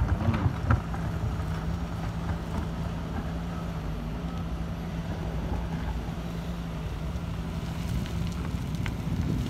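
Diesel engine of a Sumitomo SH210 hydraulic excavator running steadily under load as it digs and swings, with a couple of short knocks in the first second.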